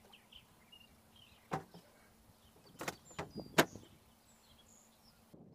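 A handful of sharp knocks and clicks, two close together about a second and a half in and a quicker cluster around three seconds in, the last one the loudest, with faint bird chirps behind them.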